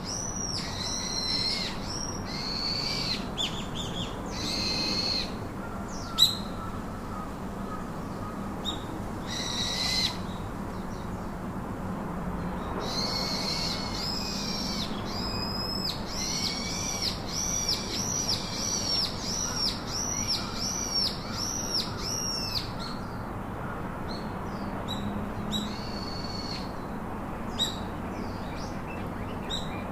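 Birds singing: runs of quick, high, arching chirps, thickest in the middle stretch, over a steady background hiss. One sharp click about six seconds in.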